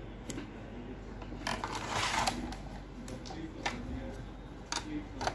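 Clicks, taps and a short scraping rustle from plastic and metal parts of a document scanner's casing and chassis being handled during disassembly.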